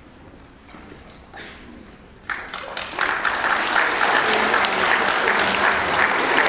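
Audience of schoolchildren breaking into applause about two seconds in, swelling quickly into loud, sustained clapping.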